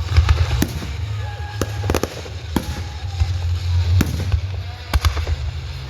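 Fireworks going off: a string of about eight sharp bangs at irregular intervals, over a steady low rumble.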